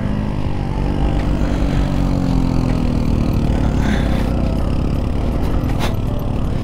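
Motorcycle engine running at low, fairly steady revs on a rough dirt trail, its pitch rising a little and easing back midway, over a heavy low rumble.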